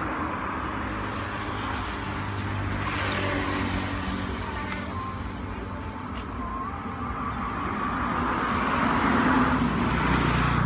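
Motor vehicle engine running with road traffic noise, growing louder in the last few seconds.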